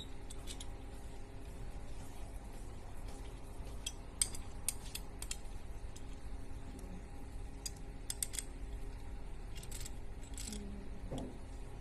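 Hex key turning in a steel-and-aluminium disassembly jig clamping an endoscope camera head, giving scattered light metallic clicks and clinks, with sharper clusters about four seconds in, around eight seconds, and near ten seconds.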